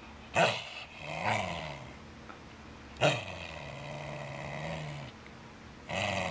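Wire fox terrier barking with a tennis ball held in its mouth, so the barks come out muffled. There are three short barks, about half a second, three seconds and six seconds in, and each trails into a longer, low, drawn-out vocal sound.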